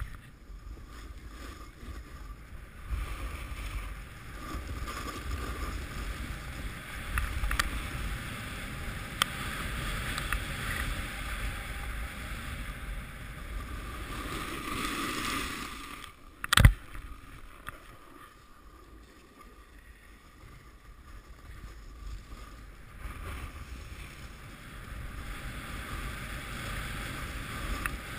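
Snowboard sliding and carving on packed snow: a continuous scraping hiss that rises and falls with the turns, with wind on the microphone. One sharp knock a little past halfway.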